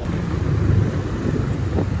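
Heavy diesel engine running with a steady low rumble.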